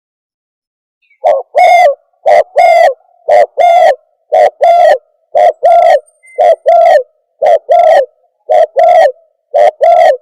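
Terkuku dove lure call, loud, repeated as pairs of cooing notes, a short note then a longer one, about once a second, starting about a second in.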